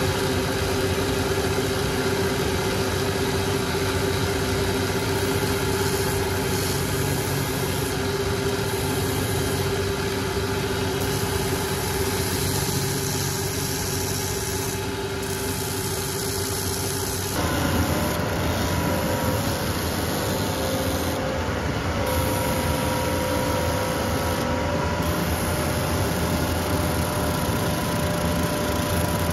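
Shoe-repair finishing machine's sanding belt running steadily as a boot's heel and sole edge are sanded against it. About two-thirds of the way through, the sound switches abruptly to a second finishing machine's sanding wheel running, with a different hum, as the sole edge is sanded.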